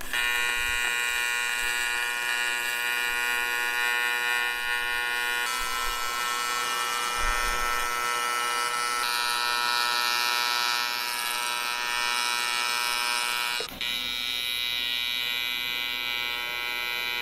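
AC TIG welding arc on cast aluminum, a steady buzz with a brief break about three-quarters of the way through before it picks up again.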